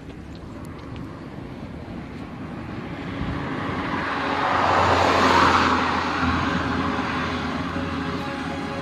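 City street traffic: a steady wash of car noise, with a vehicle passing close that swells to its loudest about five seconds in and then fades back into the traffic.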